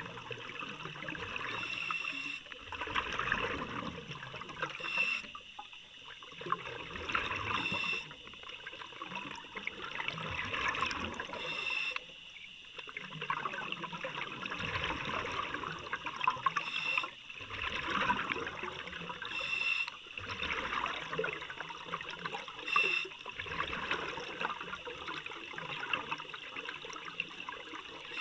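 A diver breathing underwater through a regulator: hissing inhalations and gurgling exhaled bubbles, repeating in regular breaths every few seconds.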